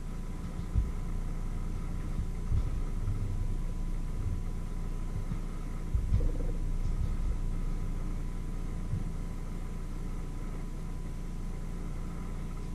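Steady low hum with a few soft knocks from hands working at a wooden cutting board, the loudest about six seconds in.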